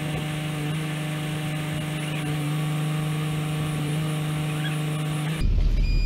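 Crane truck's engine running at a steady speed, a constant even hum. About five seconds in, the sound cuts to a low wind rumble on the microphone.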